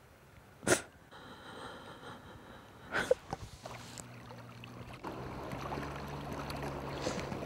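A wooden rowboat being rowed on a lake, with two sharp knocks in the first three seconds, like oars striking the boat or the water. A rush of water builds after them, and a steady low hum comes in about halfway.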